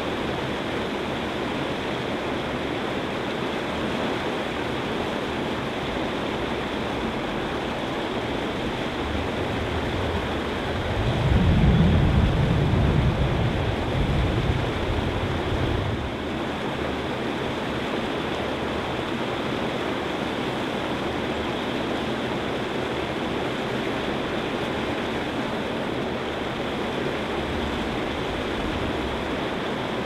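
Water pouring over a curved lock overflow weir and churning in the pool below: a steady rushing. About eleven seconds in, a low rumble swells for a few seconds, then fades.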